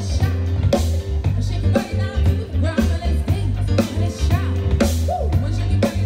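Live band music: a woman singing over electric guitar, drums and a bass line.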